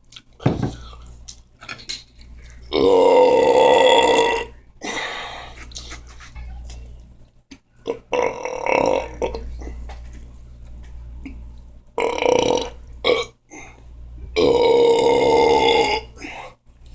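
A person belching loudly, four long drawn-out belches with shorter ones in between.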